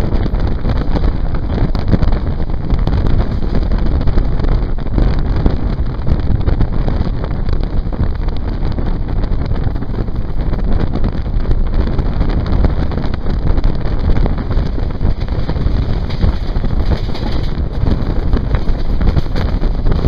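Heavy wind buffeting the microphone at the open doorway of a moving passenger train, mixed with the train's running noise.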